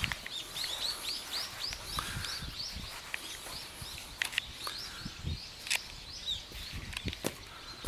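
Small birds chirping, a quick run of short repeated notes, about three a second, thinning out after the first few seconds. A few sharp clicks and soft low thuds are scattered through it.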